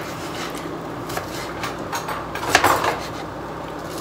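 Kitchen knife cutting food on a cutting board: a few light, separate knocks, with a short, louder scrape about two and a half seconds in.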